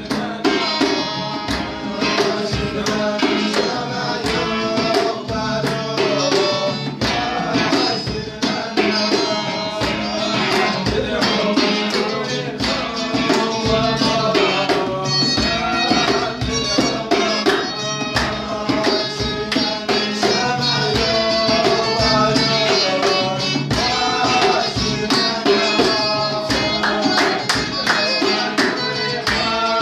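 Amazigh Ahidous song in a modern arrangement: a djembe hand drum and two acoustic guitars accompany a male singing voice, with hand-clapping.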